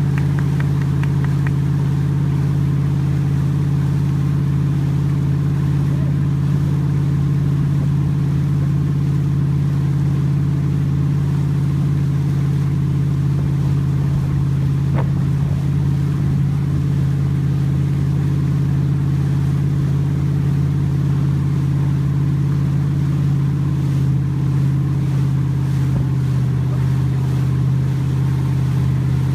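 Motorboat engine running steadily at towing speed, a constant low drone that holds the same pitch and level throughout.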